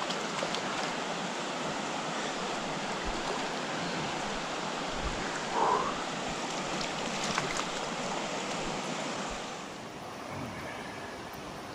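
Steady rush of a fast mountain river's water over rocks, an even roar. A brief louder sound comes about halfway through, and the rush drops a little in level near the end.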